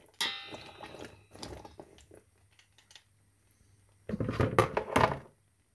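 A metal spoon clinks with a ringing note against a stainless steel pot, then scrapes and taps among whole peppers for a second or two. After a pause, a louder, noisier burst of clattering and handling lasts about a second near the end.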